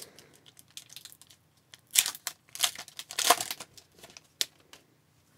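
Foil wrapper of a hockey card pack being torn open and crinkled in a run of short, crackly bursts, the loudest about two to three and a half seconds in, as the stack of cards is pulled out.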